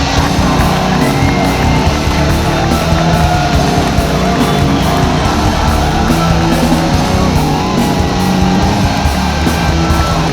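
Heavy metal music with low-tuned electric guitars in Drop B, playing continuously at a loud, steady level.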